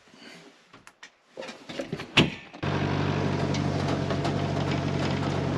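Farm vehicle's engine running at a steady low drone. It comes in abruptly about two and a half seconds in, after a near-quiet stretch broken by a few knocks and a sharp click.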